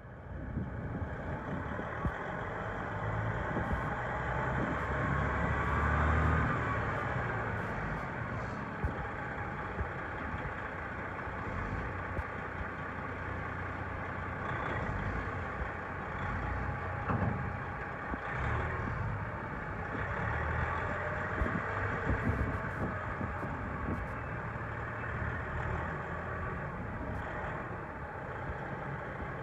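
Diesel engine of a 2002 Freightliner Columbia 120 semi-tractor idling steadily, with a short swell in level about six seconds in.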